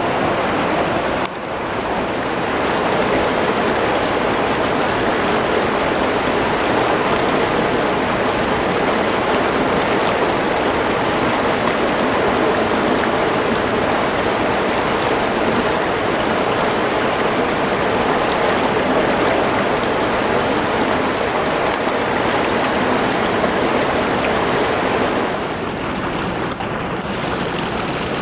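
Steady rush of fast-flowing river water, its tone shifting slightly about a second in and again near the end.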